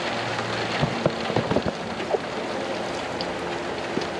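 Steady rain falling on pavement, a continuous even hiss, with a few short knocks and taps about a second in.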